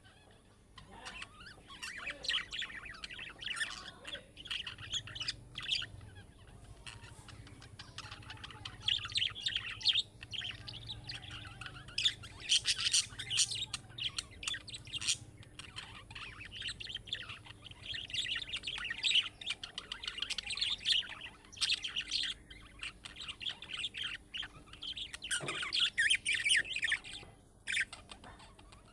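Budgerigars chattering and warbling in a steady run of rapid chirps and squawky notes, in bursts with short pauses.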